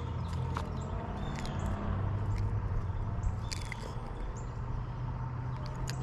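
Small birds chirping in short, repeated high calls over a steady low hum, with a few faint clicks.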